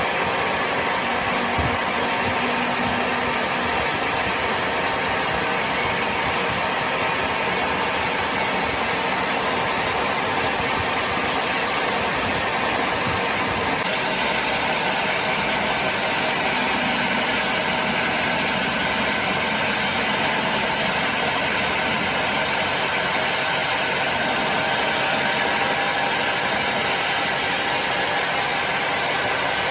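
A workshop machine running steadily with a constant hum of several tones; its sound brightens and grows harsher about halfway through.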